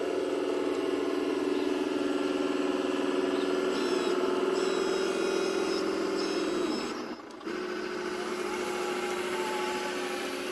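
Radio-controlled scale construction machine running: a steady electric motor and hydraulic pump whine with higher gear whine over it. It cuts out briefly about seven seconds in, then starts again.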